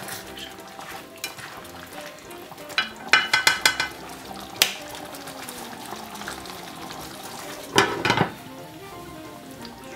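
Creamy curry sauce simmering with a light sizzle as a plastic spatula stirs it in the pot; about three seconds in the spatula clinks against the pot several times in quick succession. Near the end a glass lid is set down on the pot with a clatter. Soft background music underneath.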